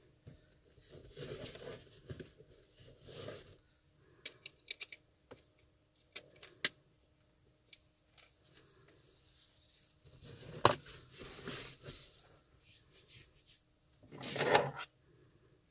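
Scattered light clicks and clinks, with a few short rustling bursts. The loudest sharp click comes about two-thirds of the way through, and a longer rustle comes near the end.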